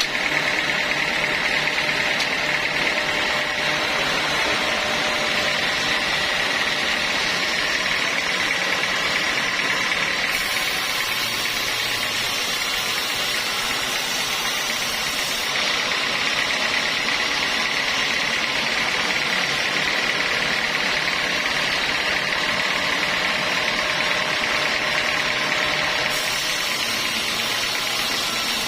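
Sawmill saw running steadily: a constant high-pitched whine over a continuous mechanical noise as it works through timber.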